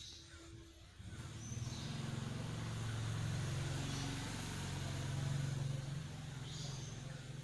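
A motor engine running steadily, coming in about a second in.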